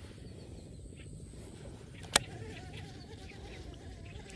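A single sharp click about two seconds in, then a fly buzzing close by with a wavering pitch over a low outdoor background.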